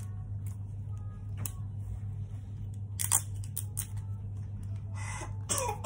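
Adhesive tape being pulled from a desktop tape dispenser and torn off: a few short clicks and crackles, then a longer rasping pull near the end. A steady low hum runs underneath.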